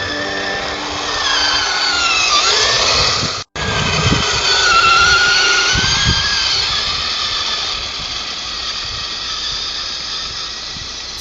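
Electric motor and gearbox whine of a Tamiya Blizzard SR radio-controlled tracked snow groomer driving, the pitch rising and falling with throttle. There is a brief break about three and a half seconds in.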